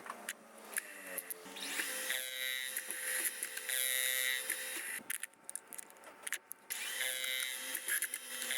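Small machine tool's electric motor whining: it rises to a steady running whine about a second and a half in, stops about halfway through, and starts up again with a rising whine about two seconds later.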